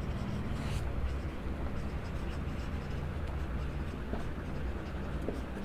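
Marker pen writing on a whiteboard: faint, short scratching strokes over a steady low hum.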